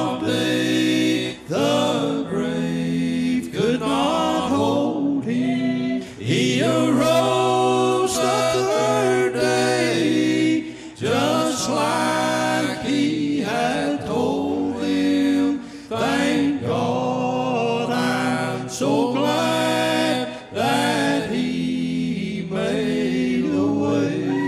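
Male bluegrass gospel quartet singing in close harmony, in sung phrases broken by short breaths every few seconds.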